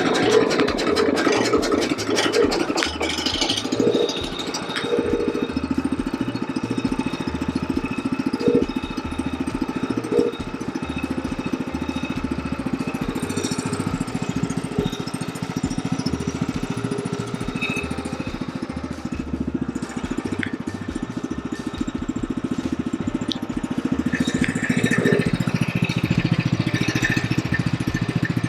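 Portable Norwood sawmill's gasoline engine running steadily at idle, warming up before the first cut. It gets a little louder in the last few seconds.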